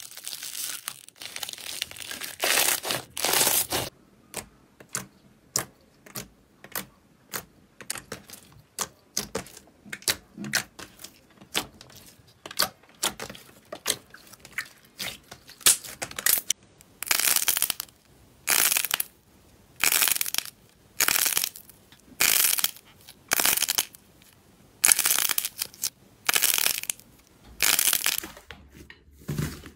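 Slime being worked by hand: first pink foam-bead slime (floam) stirred with a stick, crackling and crunching, then a long run of small clicks and pops. From about halfway, slime is squeezed in a regular rhythm, a short squish about every second and a bit.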